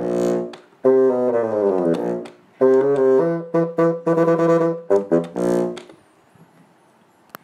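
A Fox 220 bassoon with a CTX 2 R2 bocal and a reed of Danzi cane on a Thunemann shape, played solo to demonstrate the reed: phrases of held and short notes with brief breaks, one passage sliding downward in pitch. The playing stops about six seconds in, followed by a small click.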